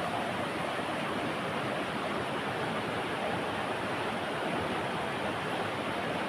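Steady rush of flowing river water, an even wash of noise without break.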